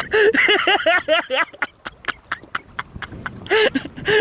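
Men laughing in quick repeated bursts, pausing about one and a half seconds in, when a series of sharp clicks is heard, then laughing again near the end.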